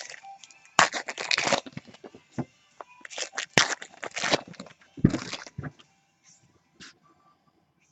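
Foil trading-card packs being torn open and their wrappers crinkled, in three bursts of crackling about a second in, around three to four seconds in, and around five seconds in.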